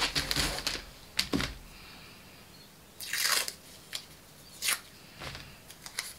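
Paper pattern sheets rustling and sticky tape being pulled off a roll and torn, in several short scrapes, the longest about three seconds in.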